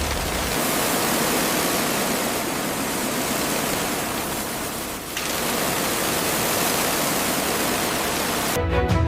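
A steady, loud rushing noise that dips briefly about five seconds in; music with a beat starts just before the end.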